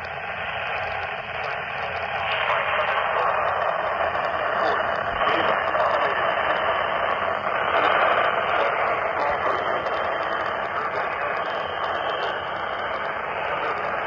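Steady hiss of radio static from a radio receiver's small speaker, cut off above the treble.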